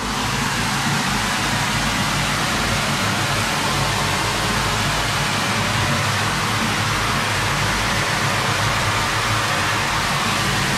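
Hot water gushing from a tap to fill a bathtub: a steady, unbroken rush of water.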